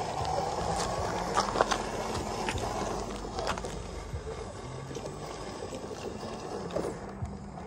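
ZP1007 RC crawler's electric motor and drivetrain humming as it crawls over loose river stones, its pitch stepping up and down with the throttle, with a few sharp clicks of stones knocking together.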